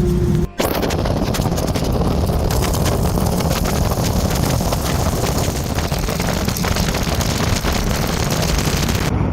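Steady loud drone of the BT-13 Valiant's radial engine and propeller, mixed with wind rushing over the microphone. A brief break about half a second in, and it cuts off suddenly near the end.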